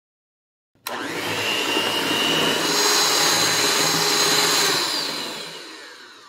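Electric hand mixer running, its beaters whipping a thick cream cheese and whipped topping mixture, with a steady motor whine. It starts abruptly about a second in and dies away over the last second or so.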